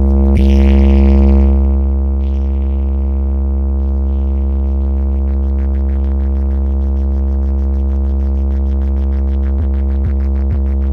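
Dance music played loud through a large DJ sound system with 18-inch bass cabinets. A heavy sustained deep bass tone dominates. A swell of noise comes in the first two seconds, and kick beats about two a second are heard at the start and again near the end.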